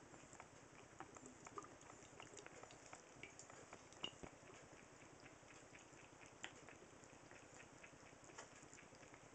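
Faint trickle of a thin stream of tap water falling into a bathroom sink, with soft, irregular clicks and splashes of a cat lapping water from it.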